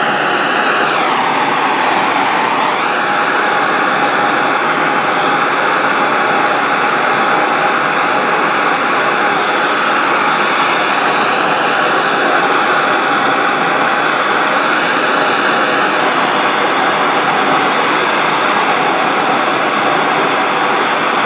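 MAP gas torch burning with a steady, loud hiss, heating a steel brush shaft to flow solder into the joint. The tone dips briefly about two seconds in as the flame shifts.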